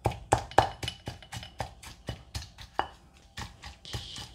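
Granite mortar and pestle pounding a wet chili-garlic paste with palm sugar to work the sugar in: quick repeated stone-on-stone thuds, about three a second, with a brief scraping sound near the end.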